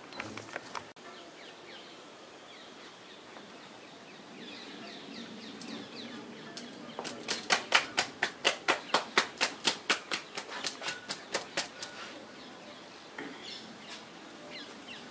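A rapid, even run of sharp taps or clacks, about five a second for some five seconds, starting about seven seconds in; birds chirp faintly around it.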